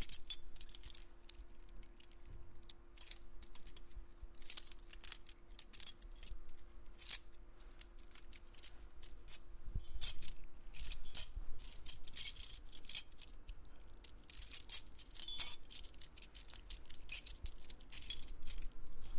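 A bunch of metal keys jingling and clinking, shaken in irregular clusters of bright metallic chinks, some shakes louder than others.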